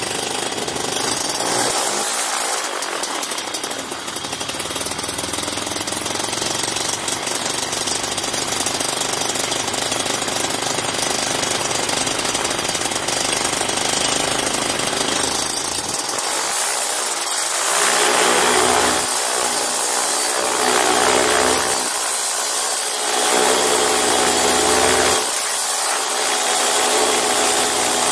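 Small two-stroke engine running with a rattling note over a steady rushing hiss. In the second half its pitch swells and drops back several times as it is revved.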